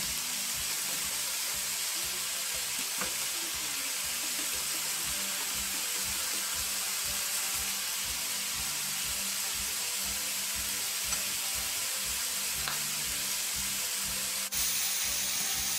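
Julienned carrots and sweet potato sizzling steadily in a frying pan with a little water, turned with a spatula. The sizzle breaks off for a moment near the end, then carries on.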